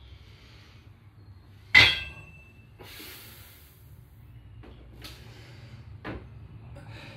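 A 65 kg loaded barbell being picked up off the floor: one loud metallic clank of bar and plates about two seconds in, with a brief ring. Then heavy breathing and a few fainter clinks as the rows begin.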